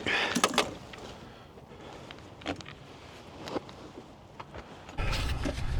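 Hand work on engine parts: a quick run of clinks and rattles, a few scattered single clicks, then a low rumble about five seconds in.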